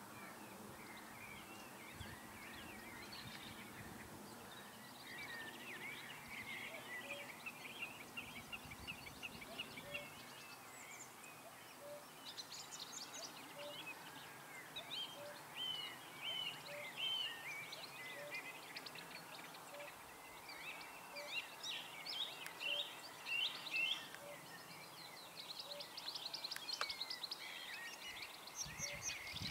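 Faint mixed birdsong: many small chirps and trills from several birds, louder in short clusters, with a faint low note repeating about once a second through much of it.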